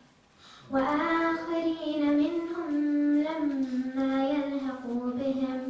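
A girl reciting the Quran into a microphone in a melodic chant, holding long, steady notes that step up and down in pitch, after a brief pause for breath near the start.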